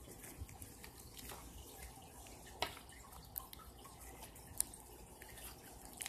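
Faint, wet, sticky clicks and pops of slime being stretched and squeezed between fingers, a few sharper ones a couple of seconds in and again near the end.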